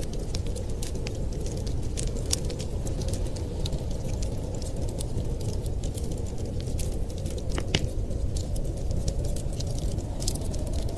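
Wood fire crackling in a fireplace, irregular sharp pops and snaps scattered throughout with a louder pop a little after the middle, over a steady low rumble.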